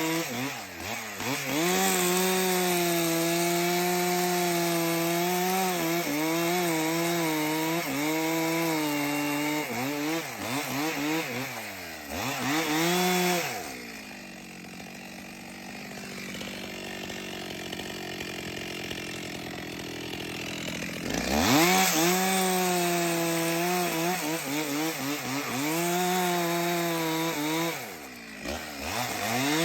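Two-stroke chainsaw running at high revs and cutting into a log, its engine note wavering as the chain loads up in the wood. It drops back to a quieter, lower running for several seconds about halfway through, then revs up sharply and cuts again.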